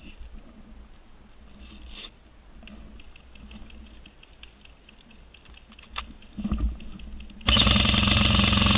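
Rustling and shuffling of movement over dry leaf litter, then, about seven and a half seconds in, a loud, rapid full-auto burst from an airsoft electric gun: a fast buzzing rattle lasting about a second and a half.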